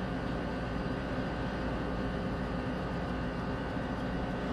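Steady whirring machine noise with a faint hum, even in level throughout.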